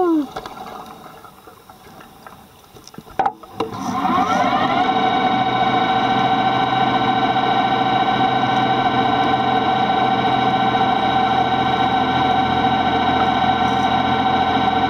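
A motor heard underwater starts after a click about three seconds in, rises in pitch for about a second, then runs at a steady speed with a loud droning hum of several fixed tones.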